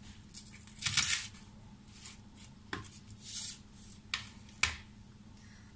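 Chef's knife slicing through an onion onto a wooden cutting board: a handful of irregular chops, the loudest about a second in.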